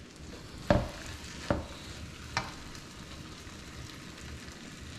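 Chopped chestnut mushrooms and onion sizzling softly in a wok on turned-down heat, with three sharp knocks in the first half, the first two the loudest.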